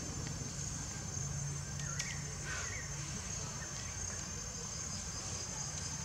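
Outdoor ambience dominated by a steady high-pitched insect drone, with a few short chirps around two to three seconds in.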